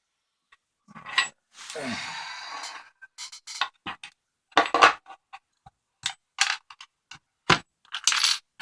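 Small metal parts of an American 5200 padlock clicking and clinking as the lock is taken apart and its pin tray worked out, with a longer scrape about two seconds in.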